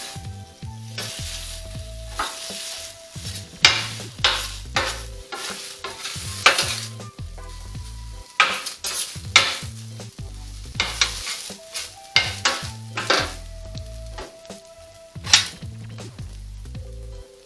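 Metal spatula stirring and tossing noodles on a hot steel flat-top griddle: steady sizzling broken by repeated sharp scrapes and clacks of the spatula on the plate.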